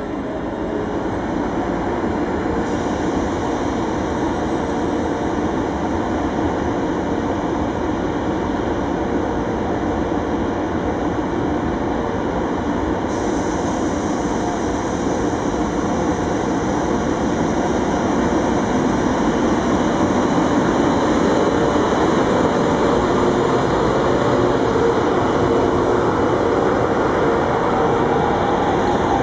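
FS E633 'Tigre' electric locomotive hauling a disabled Trenord MDVC train slowly past. Its running gear and electrics hum and rumble steadily on the rails, growing louder as it draws level in the second half.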